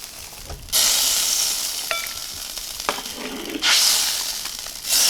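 Fish-and-tofu soup at the boil being served out of the pot: three sudden hissing surges that fade away, with a few light clinks of a ladle or utensil.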